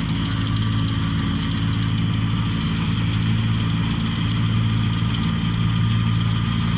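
Engine running steadily at a constant speed, a strong even hum with no change in pitch.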